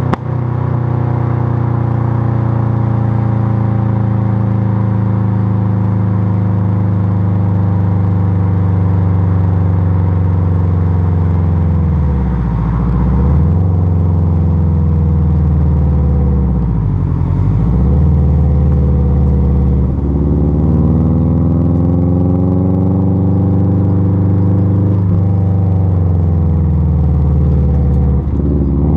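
Exhaust note of a Subaru Impreza GC8's flat-four engine through an aftermarket twister muffler, heard close to the tailpipe while driving. The engine pitch sinks slowly, then dips sharply and climbs back twice about halfway through, with smaller shifts later as the revs change.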